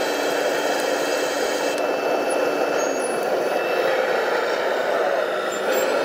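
Radio-controlled construction machine running with a steady, engine-like drone and no sharp knocks.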